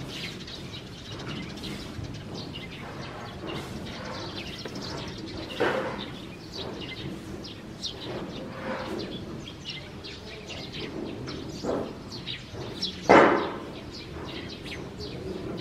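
A shovel scooping and tossing brewing grain on a floor, a few separate strokes, the loudest about thirteen seconds in, with small birds chirping throughout.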